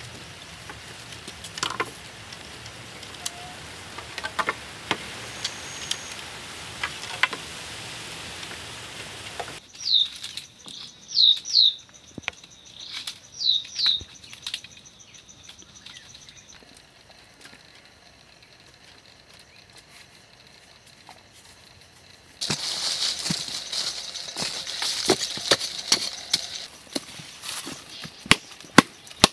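Rustling with light clicks and snaps of sticks and poles being handled, then a bird calling a series of short, quick down-slurred chirps midway, the loudest sounds here. After a quieter spell comes more rustling, and near the end sharp, evenly spaced strikes of digging into the soil.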